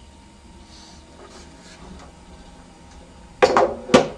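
Two loud knocks about three and a half and four seconds in, each ringing briefly, as parts of a 1950s 16mm projector's carrying case are lifted and set down, with quieter rustling before them.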